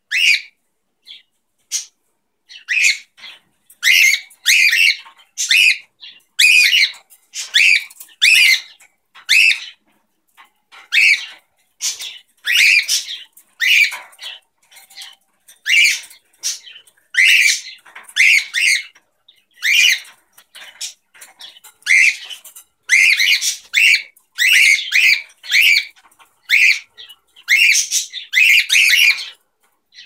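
Cockatiels calling: a long run of short chirping squawks, one or two a second, broken by a few brief pauses.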